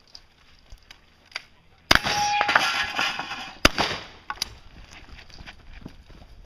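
Gunfire from elsewhere on the range. A sharp crack about two seconds in runs straight into a dense, noisy stretch of about a second and a half, with a short ringing note near its start, and ends in a second sharp crack.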